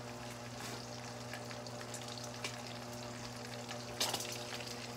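Thick-cut bacon sizzling and crackling in a frying pan, with scattered small pops and a louder burst of sizzle about four seconds in. A steady low hum runs underneath.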